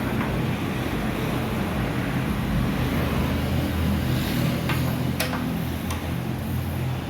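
A steady low mechanical hum with a few sharp metallic clicks and taps about two-thirds of the way through, typical of hand tools working on a car's suspension parts.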